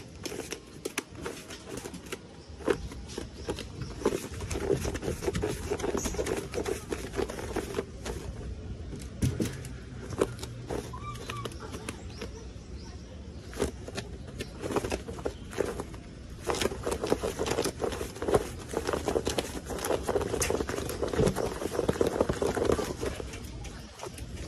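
Pet foxes making soft, low vocal sounds in stretches while one is having its belly rubbed, over rustling of fur and clothing and small clicks from the handling.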